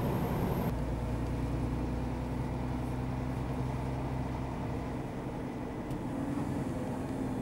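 Scania R440's 13-litre six-cylinder diesel engine running steadily at low speed, heard from inside the cab; its low hum eases about five seconds in.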